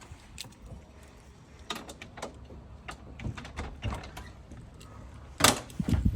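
Scattered footsteps and light knocks, then a loud door bang about five and a half seconds in, followed by a couple of low thuds.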